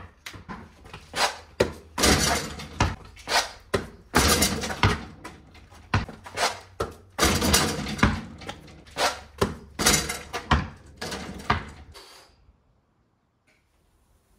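Basketball bouncing and slapping on a concrete driveway, mixed with sneaker landings and knocks against the hoop during 360 dunk attempts, coming as loud irregular thumps. The sound cuts off suddenly about twelve seconds in.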